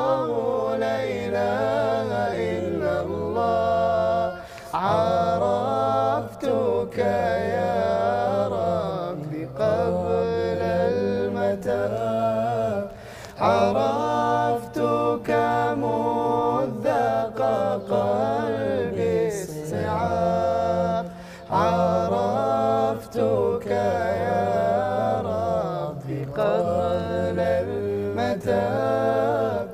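Several male voices singing an Arabic nasheed a cappella in layers: a low bass line held steadily under a melody with harmony above it. The phrases are broken by short pauses every few seconds.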